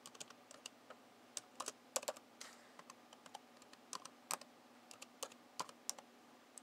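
Typing on a computer keyboard: irregular, unhurried key clicks with short pauses between them.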